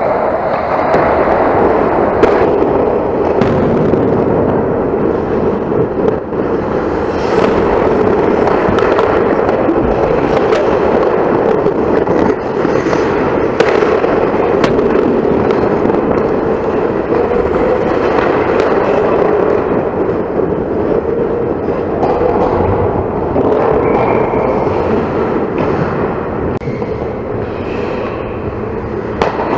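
Ice hockey game sounds from close to the net: a steady scraping rush of skates on ice, with frequent sharp clacks of sticks and puck.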